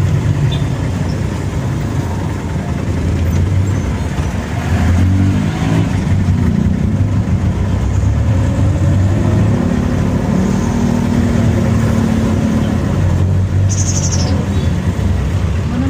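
A motor vehicle's engine running on the road, a steady low drone whose pitch rises and falls as it changes speed through the middle.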